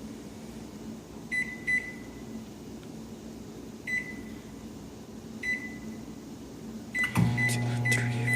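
Microwave oven keypad beeping as the three-minute cook time is entered, in short single-pitch beeps a second or two apart. About seven seconds in, the oven starts running with a steady low hum, with a few more quick beeps over it.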